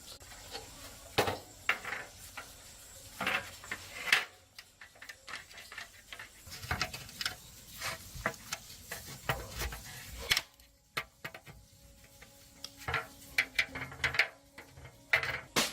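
Irregular clinks, taps and knocks of small metal tools and parts being handled, with no engine running.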